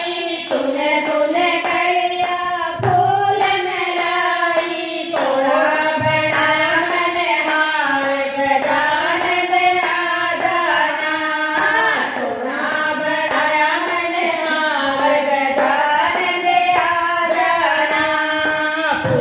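Women singing a Hindi devotional bhajan to Ganesha (Ganpati) together, a continuous melody with hand claps keeping time.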